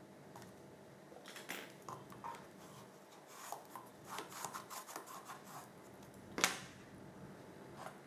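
Cardstock and paper being handled: scattered rustling, scraping and light taps, with one sharp click about six and a half seconds in.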